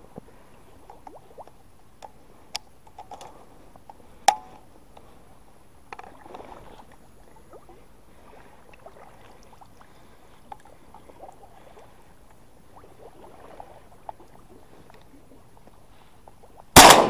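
A single shotgun shot near the end, very loud and sudden, coming after a long stretch of faint handling clicks and rustles with one sharper click about four seconds in.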